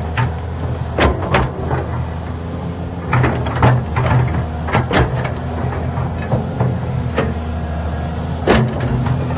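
Excavator engine running steadily, with irregular sharp metallic clanks and knocks from the machine at work, the loudest a bit over a second in and about eight and a half seconds in.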